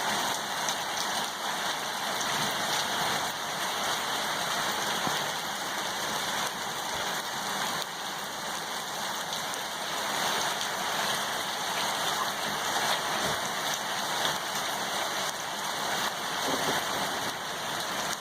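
Steady rain falling, a dense even patter of drops, the hail having given way to plain rain.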